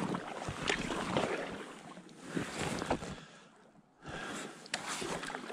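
Paddle strokes splashing and water washing around a packraft, with wind on the microphone; the sound drops away briefly about three and a half seconds in, then resumes.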